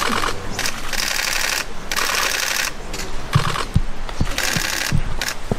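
Camera shutters firing in rapid bursts, several short rattling runs of clicks in a row. A few dull low thuds come in the second half.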